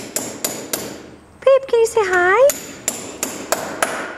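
Domestic cat meowing: a short broken meow about a second and a half in, then a longer meow that dips and rises in pitch. Behind it runs a steady series of sharp knocks, about three or four a second.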